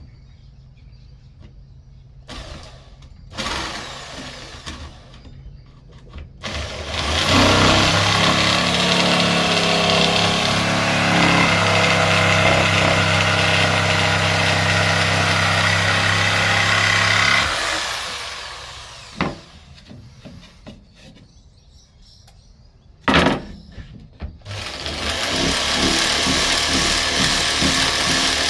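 Electric jigsaw cutting along an edge to straighten it: one steady run of about ten seconds, a quieter pause with two sharp knocks, then a second cut starting a few seconds before the end.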